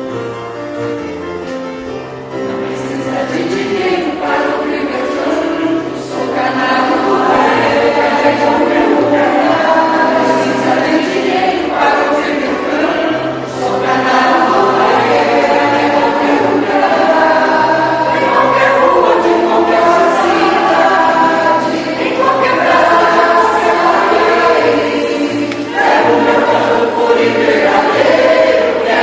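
Music: a choir singing over instrumental backing with a repeating bass line, growing fuller a few seconds in.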